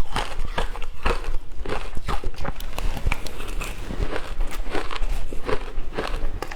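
Close-up chewing and crunching of shaved ice, with rapid, irregular crisp crunches several times a second.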